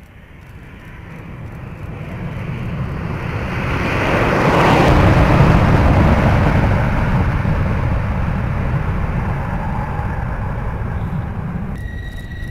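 Rockwell B-1B Lancer's four afterburning turbofan engines at full afterburner on takeoff: jet noise builds to a peak about five seconds in as the bomber passes, then slowly fades as it climbs away. Near the end a cut brings in a second B-1B takeoff, with a steady high whine over the engine noise.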